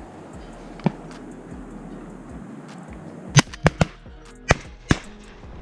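Shotgun fire at a duck hunt: one shot about a second in, then five shots in quick succession near the end.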